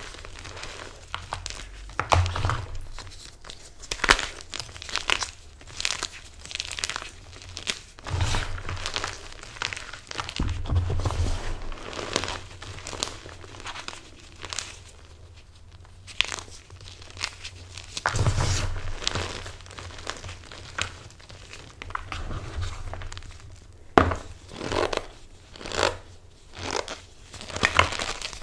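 Hands squeezing and crushing blocks of MagKing gym chalk coated in cornstarch, making irregular crunches and the squeak of packed cornstarch. There is a brief lull midway and a quicker run of crunches near the end.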